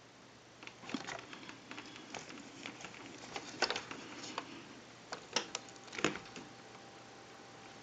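Faint, scattered clicks and light taps of small parts being handled as a fuse is fitted into a telephone's circuit, with a handful of sharper clicks between about three and six seconds in.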